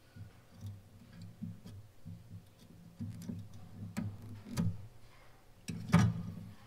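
Steel pliers picking and clicking against the thin metal fins of a Farmall Super M tractor radiator core: a string of irregular small ticks with soft low handling bumps, the sharpest click about six seconds in.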